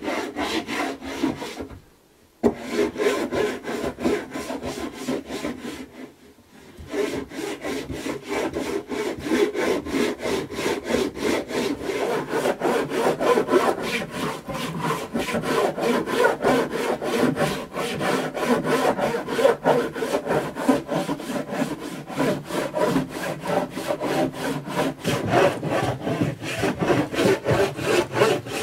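Wooden floorboards being hand-sanded: quick back-and-forth scraping strokes, several a second, with short pauses about two seconds in and again about six seconds in.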